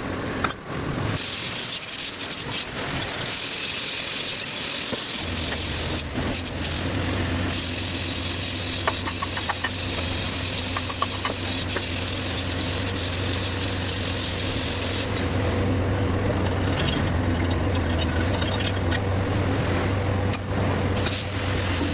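Harsh rasping, scraping noise of metal being worked, coming and going, joined about five seconds in by the steady low hum of an engine running.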